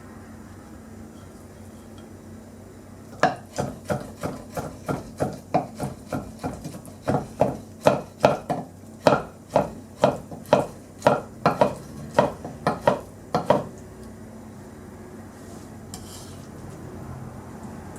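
Kitchen utensil work: a run of sharp, regular knocks, about two a second, starting a few seconds in and stopping after about ten seconds, over a faint steady hum.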